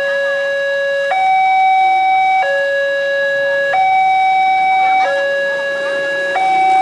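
Railroad level-crossing warning alarm sounding: an electronic two-tone signal that alternates between a lower and a higher tone, each held about a second and a quarter. It signals that the barrier is down for an approaching train.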